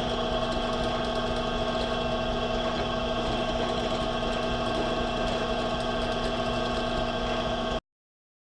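Electric drill with a small bit running at a steady speed, drilling a row of small holes in a plastic project enclosure. The motor whine holds an even pitch and level, then stops abruptly near the end, leaving dead silence.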